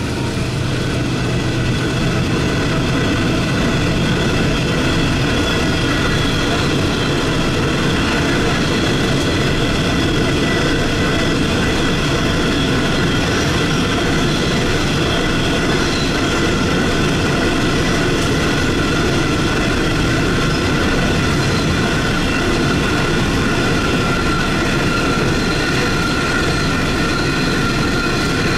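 Ore cars of a heavy-haul freight train rolling past steadily: a continuous rumble of steel wheels on rail, with a steady high ringing over it.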